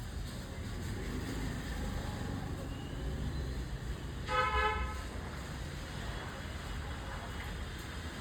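A single short horn toot, about half a second long and a little over four seconds in, over a steady low rumble.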